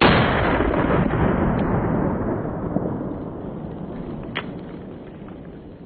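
A single shot from a Dan Wesson .44 Magnum revolver with a 9.5-inch barrel, a sharp loud crack at the very start that dies away slowly over about five seconds. A short click comes about four and a half seconds in.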